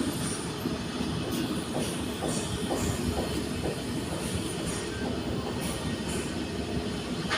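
Steady low mechanical rumble, with faint short high squeaks now and then.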